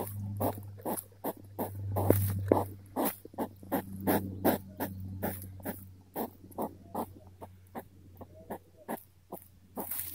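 European hedgehog sniffing and snuffling close to the microphone: a rapid run of short, sharp sniffs, about four a second, growing fainter in the second half.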